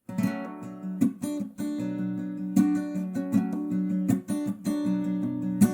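Acoustic guitar strumming chords in a steady rhythm, with a stronger accented stroke about every second and a half, as the instrumental introduction to a song.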